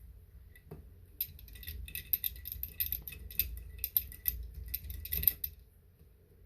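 Small screwdriver driving a tiny screw into the laptop's plastic bottom cover: a quick run of faint small clicks and ticks, from about a second in until near the end.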